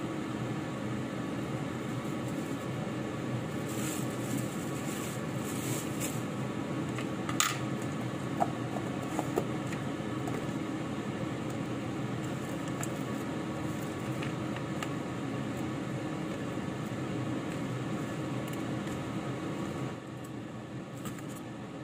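Steady fan-like machine hum in a kitchen, with a sharp click about seven seconds in and a few light knocks. The hum drops a little near the end.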